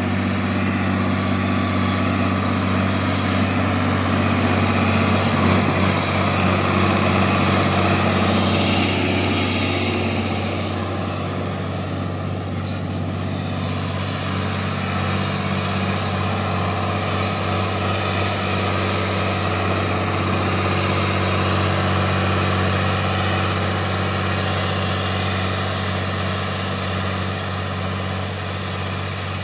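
YTO 1304 tractor's diesel engine running steadily under load while pulling a disc harrow through dry soil, a constant low drone.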